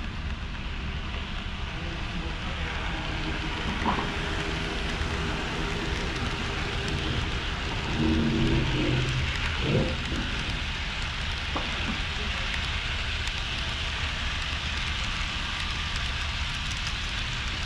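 HO scale model trains running on layout track, a steady rushing noise, with a brief low tone about eight seconds in and a few light clicks.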